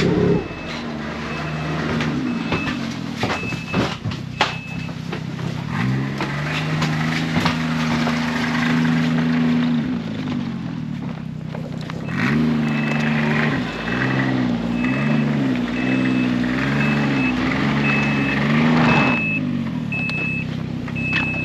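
Snowmobile engines running and being revved, their pitch climbing about six seconds in and wavering up and down later on, as the sleds are driven off a trailer. A reverse-warning beeper beeps in a steady repeated high note at the start and again in the second half.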